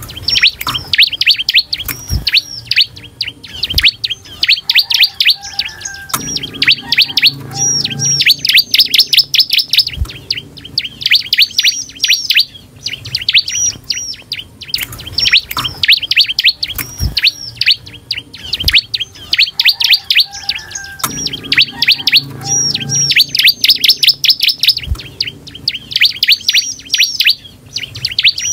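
Bar-winged prinia (ciblek) singing a loud, vigorous song of rapid sharp chirps and trills in repeated fast runs, with a few short clicks between them.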